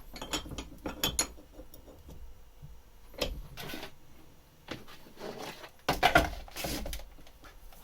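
Small metal tools and parts being handled: irregular clinks, rattles and scrapes in short clusters, the loudest about six seconds in.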